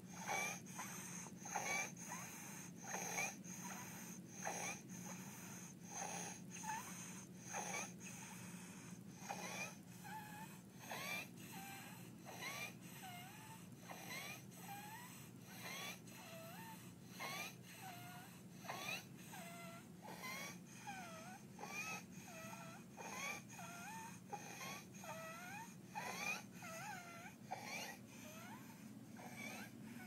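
A sleeping toddler's stridor from croup: a harsh, whistling noise with every breath, a little more than one breath a second. In the latter part each breath carries a clearer whistle that dips and rises in pitch.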